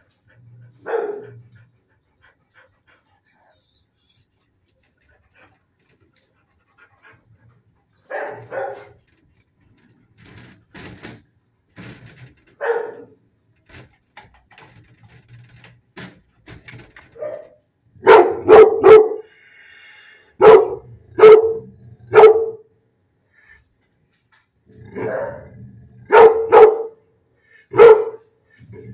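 A dog barking: single barks several seconds apart at first, then quicker, louder runs of two or three barks in the second half.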